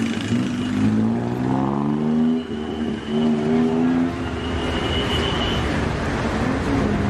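A motor vehicle engine revving in street traffic, its pitch rising twice in the first four seconds, over a steady traffic hum.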